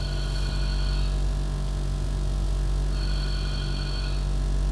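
Ringback tone heard through a corded telephone handset while a call to hotel room service rings out: two rings, each about a second long, about three seconds apart. A steady low hum runs beneath.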